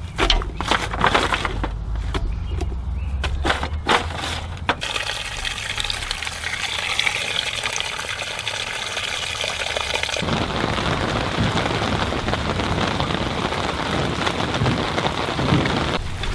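Chopped vegetables dropped by hand into an aluminium pot, knocking against the pot and each other. After about five seconds, water is poured into the pot in a steady stream for about five seconds. After about ten seconds the pouring stops and a steady rushing noise follows.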